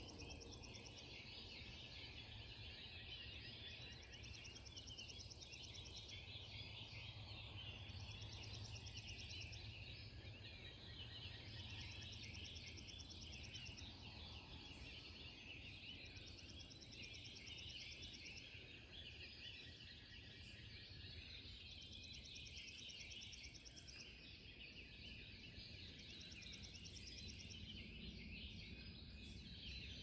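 Faint dawn bird chorus, many birds singing at once, with a rapid high trill repeated every few seconds over a steady low rumble.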